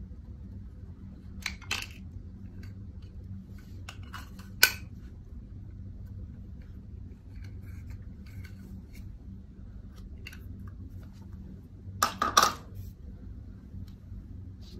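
Plastic blush compact being opened and its blush scraped out with a small tool over a glass bowl: a few sharp clicks and taps with faint scraping between them, the loudest cluster of clicks near the end, over a steady low hum.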